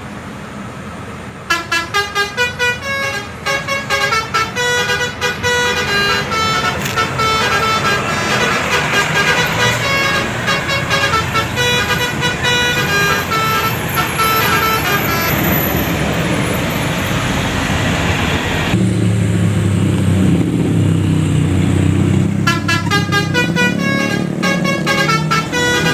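Telolet musical bus horn playing quick runs of short stepped notes, like a rapid tune. A stretch of rushing road noise fills the middle, a lower set of notes follows about two-thirds through, and the quick high tune returns near the end.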